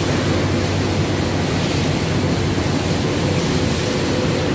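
Vertical multistage high-pressure water pump running: a steady electric-motor hum under an even rushing noise.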